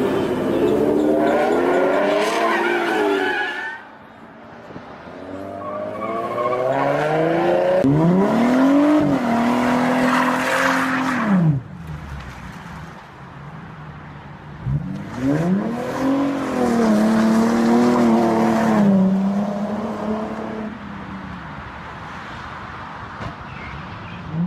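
Car engines revving hard: a wavering rev at first, then twice an engine climbs sharply and holds at high revs for a few seconds, with the hiss of tyres spinning, as in a burnout. The first hold cuts off suddenly and the second falls away.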